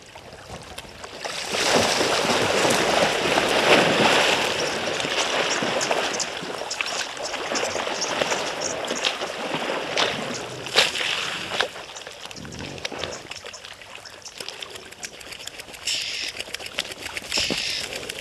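A hippo surging through a shallow waterhole: heavy water splashing and churning that starts about a second and a half in and dies away over the following seconds.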